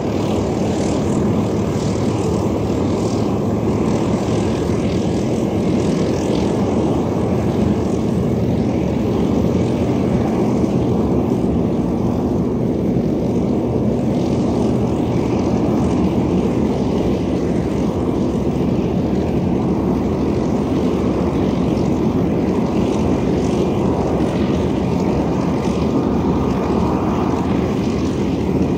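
The two Napier propjet engines of a Fairey Rotodyne running steadily: a dense, even engine and propeller noise with a faint steady whine above it.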